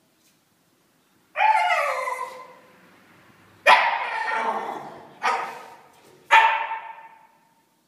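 Shiba Inu puppy barking at a cat, four sharp barks spaced a second or two apart, each fading out over about a second, while it play-bows in front of it.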